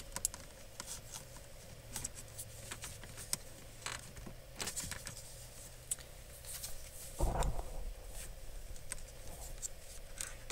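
Small plastic clicks and rustles from hands handling a car's headlight switch and its wiring connector, with one louder low thump about seven seconds in.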